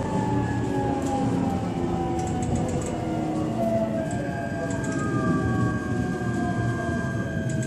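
E129-series electric multiple unit heard from on board while running, over steady rail and running noise. Several motor and inverter tones fall slowly in pitch as the train loses speed. A steady high tone joins about four seconds in.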